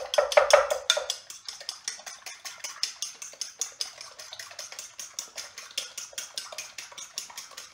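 Fork beating raw eggs in a ceramic bowl, the tines clicking against the bowl in a fast, even rhythm of about six or seven strokes a second, louder in the first second.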